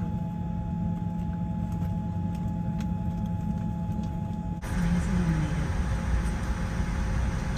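Boeing 787 cabin noise on the ground: a steady low rumble with a few steady hum tones. About four and a half seconds in it cuts abruptly to a louder, fuller rush.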